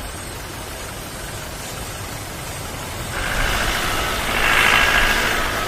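A motor vehicle engine running steadily, growing louder about three seconds in.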